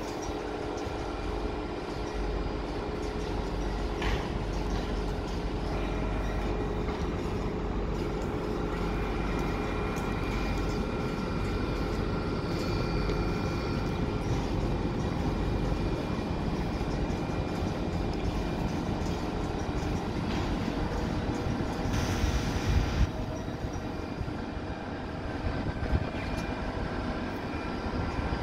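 Double-deck TGV high-speed train at a station platform, its traction equipment and cooling fans humming steadily with a few steady whining tones over the noise. A brief louder rush of noise comes about 22 seconds in.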